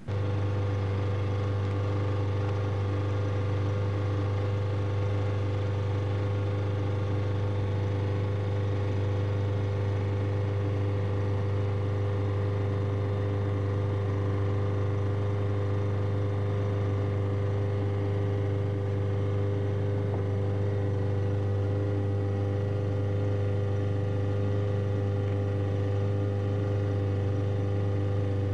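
Sailboat's auxiliary engine running at a steady speed while motoring, a constant low drone.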